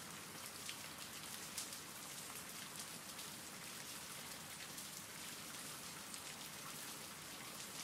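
Faint, steady rain: an even hiss of falling rain flecked with the patter of individual drops.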